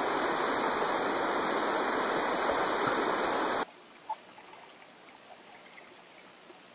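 Steady rushing of a creek's flowing water. About three and a half seconds in it cuts off abruptly to a much quieter faint hiss with a few small clicks.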